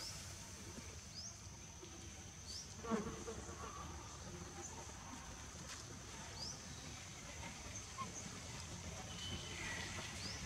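Faint outdoor insect drone: a steady high-pitched tone, with a short rising chirp repeating every second or two and one brief louder sound about three seconds in.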